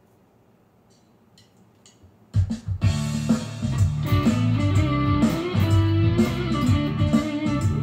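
A few faint ticks, then about two and a half seconds in an electric guitar comes in loudly, playing a melodic guitar-solo line with bass and drums behind it.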